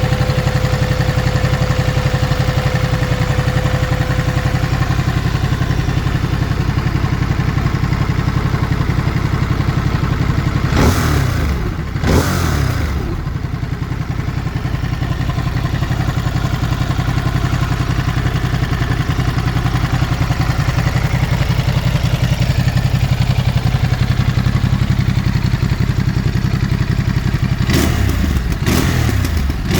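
Ducati Monster 937 (2021) 937 cc V-twin idling on its stock exhaust, blipped twice in quick succession about a third of the way in and several more times near the end. Each blip rises and falls sharply, with pops from the exhaust as the revs drop.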